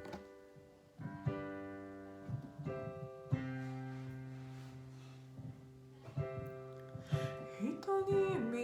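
Acoustic guitar playing the introduction of a song: chords are struck, and one is left ringing and slowly fading for a few seconds. A voice slides in briefly near the end.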